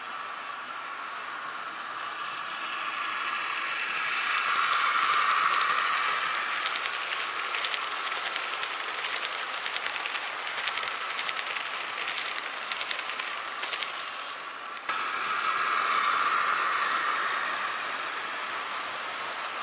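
HO-scale Bachmann Great Northern passenger train running past: a motor whine swells as it approaches, then a long stretch of rapid clicking as the coach wheels roll over the rail joints and the turnout. The sound changes suddenly at about fifteen seconds in and swells again.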